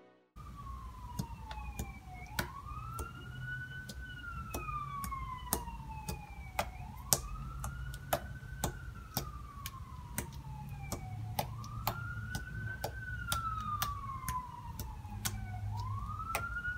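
Sticky clicks and pops of pink homemade slime being poked with a finger, coming irregularly several times a second. Behind them a siren wails faintly, rising quickly and falling slowly about four times.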